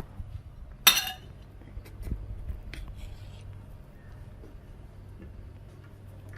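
Kitchenware clinking: one sharp clink with a short ring about a second in, then a few lighter taps and knocks, over a low steady hum.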